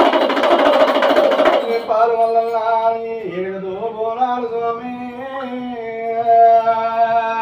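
Fast drumming that stops about two seconds in, followed by a man singing a devotional chant solo in long, drawn-out notes that slide gently up and down.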